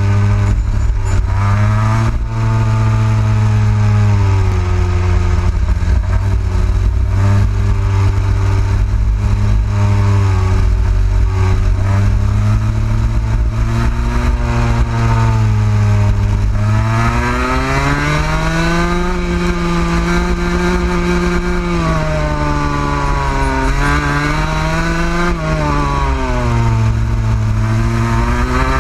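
Rotax Max 125cc two-stroke kart engine at race speed, heard on board, its pitch repeatedly climbing under throttle and dropping back as the kart laps.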